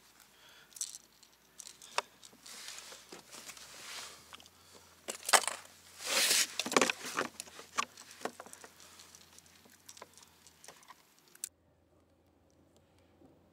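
Handling and unhooking a freshly caught fish in a kayak: gloved hands rustling against the fish, with clicks, knocks and a metallic rattle of the lure and its hooks, busiest in the middle. The sound drops away suddenly near the end.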